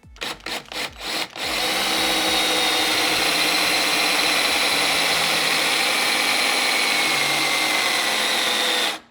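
Cordless drill triggered in a few short bursts, then run continuously for about seven seconds. Its whine sags slowly in pitch as the battery runs flat, and it cuts off suddenly near the end when the battery dies.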